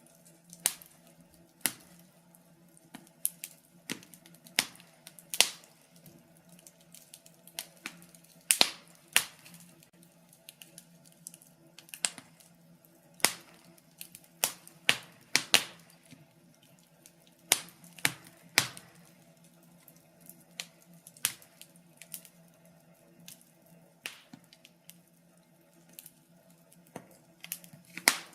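Fire crackling in a fireplace: irregular sharp pops and cracks, some loud, coming at uneven intervals, over a faint steady hum.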